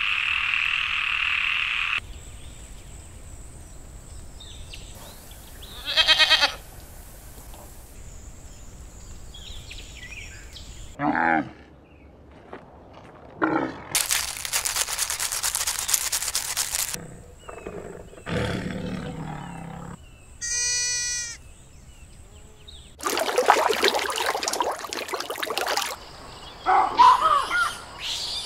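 A string of different animal calls, one after another with quiet gaps. A frog croaks for the first couple of seconds, a squirrel's fast rattling chatter comes about midway, and other, unnamed animal calls come between and near the end.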